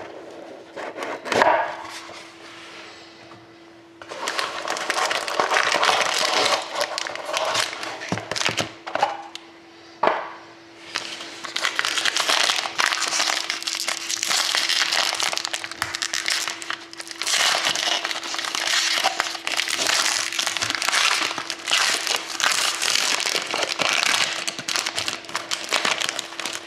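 The foil wrapper of a hockey card pack crinkling and tearing as it is unwrapped by hand, in long stretches of dense crackle with a short pause partway. A sharp knock and some lighter handling of the cardboard box come first.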